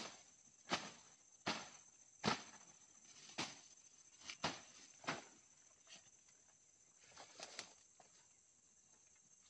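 Footsteps going downhill on the forest floor, about one step a second, irregular and dying away after about six seconds, over a steady high-pitched drone of insects.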